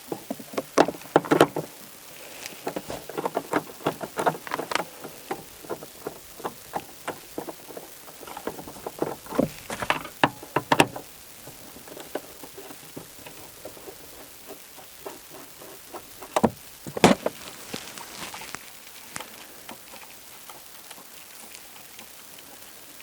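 Clicks and knocks from hand work on a car's taillights: tools and hard plastic parts being handled while the lamps are taken out. They come in irregular clusters, with a fast run of small clicks a few seconds in and a couple of sharper knocks about ten and seventeen seconds in.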